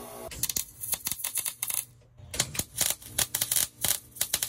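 MIG welder arc crackling and sputtering in uneven bursts as the repair piece on the car's lower radiator support is tacked, with a brief pause about two seconds in.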